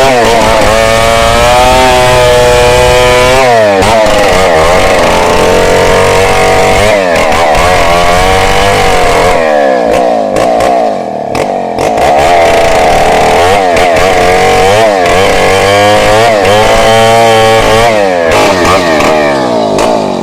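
Two-stroke chainsaw running at high revs while cutting into a log, its engine pitch repeatedly dropping and recovering as the chain bites, with a brief easing of the engine about eleven seconds in.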